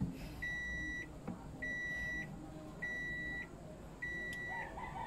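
An electronic warning beeper sounding a steady, evenly repeated beep, roughly one beep every 1.2 seconds, each about half a second long.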